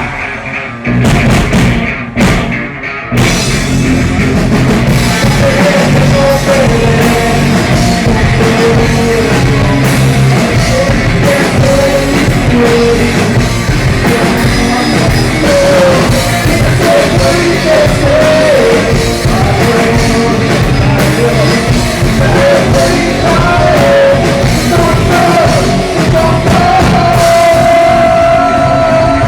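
Rock band playing loud, with a drum kit and a wavering melody line over it. It opens with a few separate hits before the full band comes in about three seconds in.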